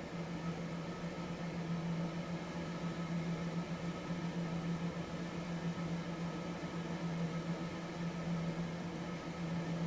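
A small fan motor running: a steady low hum under an even hiss.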